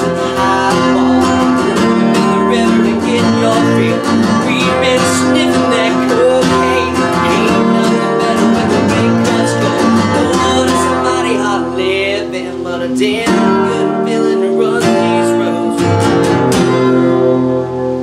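Acoustic guitar being strummed, playing a steady rhythmic song.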